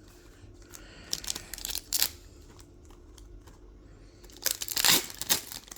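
Foil wrapper of a Pokémon card booster pack crinkling and tearing as it is opened by hand, in two spells of rustling: a shorter one about a second in and a louder one near the end.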